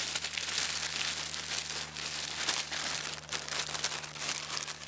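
A plastic Ziploc bag crinkling continuously as a small whole chicken inside is shaken and massaged to coat it in dry seasoning.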